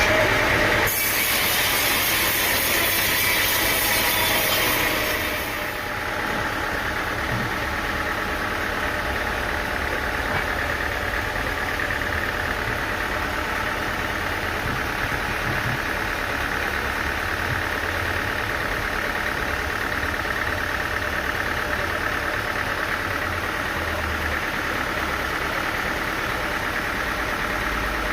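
Sawmill machinery running steadily with an engine drone. A louder, hissing noise rides over it for the first five seconds or so, then stops, leaving only the steady running.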